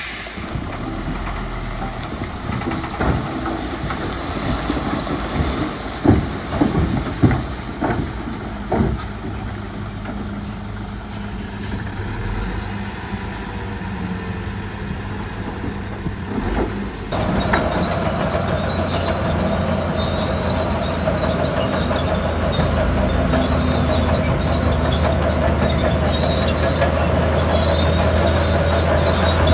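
Zoomlion crawler bulldozer working, its engine running and steel tracks clanking and squealing. Several sharp clanks come in the first third. A little over halfway the engine gets suddenly louder and stays up under load.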